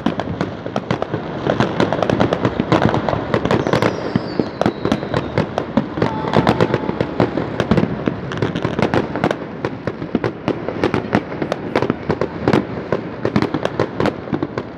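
Fireworks going off in quick succession: a dense, unbroken run of sharp bangs and crackling pops.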